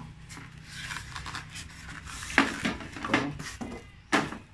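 Plastic packaging rustling and crinkling as a digital platform scale is unpacked, with sharp clacks of its plastic plate and parts being handled, three louder ones in the second half.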